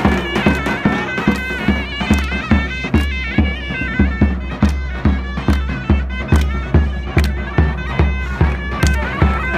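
Loud folk dance music: a shrill reed wind instrument plays an ornamented melody over steady, heavy drum beats.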